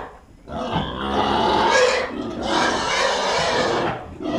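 Hungry pigs squealing in long, loud screams of about a second and a half each, with short breaks between them: the noise they make when they want feeding.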